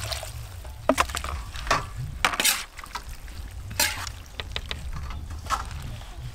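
Metal spatula stirring and tossing shredded cabbage, carrot and chicken in a large steel wok, with irregular scrapes and clanks of the spatula against the pan, over a low steady rumble.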